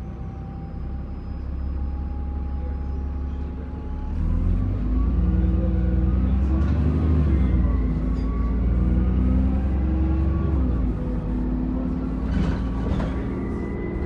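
Alexander Dennis Enviro400 bus on a Dennis Trident chassis: the engine holds a steady note with a thin whine, then about four seconds in it pulls away under load. The engine note rises in steps, and a high, steady turbo whine comes in near the end.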